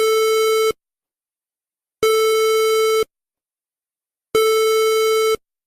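Three identical electronic alert beeps, each about a second long with a gap of about a second and a quarter between them: a steady, buzzy tone.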